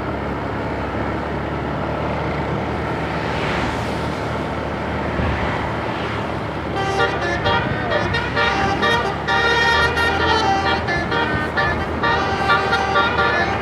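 Vehicle engine and road noise, then about seven seconds in a basuri telolet bus horn starts up. It plays a tune of short notes, several tones at once, breaking on and off.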